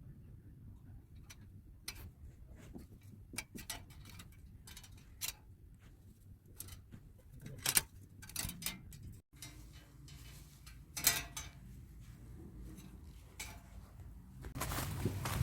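Scattered light clicks and taps at irregular intervals, over a quiet background.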